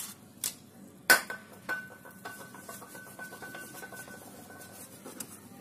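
A short hiss of injection-cleaner spray on a motorcycle fuel injector, then a sharp metallic clink about a second in that rings on for about three and a half seconds, with a few lighter clicks and a rag wiping the injector.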